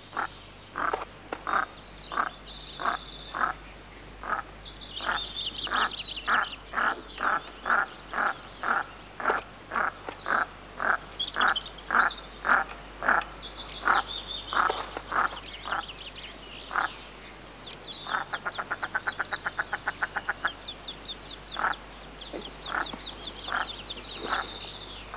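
Female goosander calling her chicks with short repeated calls, about two a second, while the goosander ducklings peep high over them. A little past halfway, for about two seconds, the calls run together into a fast rattle.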